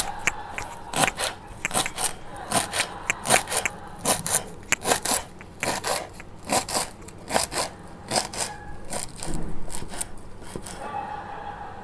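Kitchen knife chopping fresh coriander on a wooden cutting board: a run of uneven, sharp knocks of the blade on the board, about two or three a second, that stops about ten and a half seconds in.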